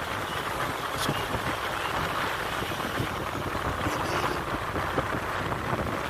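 Car driving on a rough road, heard from inside the cabin: a steady mix of road and engine noise with a few light knocks.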